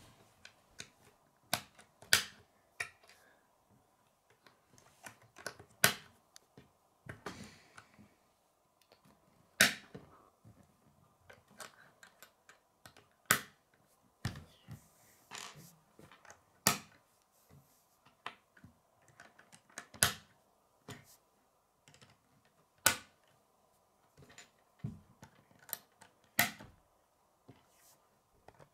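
K'nex plastic rods and connectors snapping together, irregular sharp clicks every second or few, the loudest roughly every three to four seconds, with lighter clacks of the plastic pieces against a wooden tabletop.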